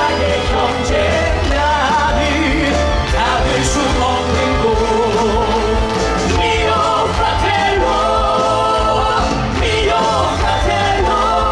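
Three male voices singing together into handheld microphones over amplified musical accompaniment with a strong bass line.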